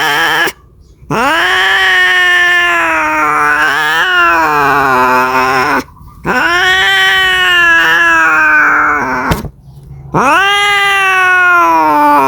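Domestic cat caterwauling: long drawn-out yowls, three in a row with short breaks between them, each rising in pitch, wavering and then falling away. A cat's mating call.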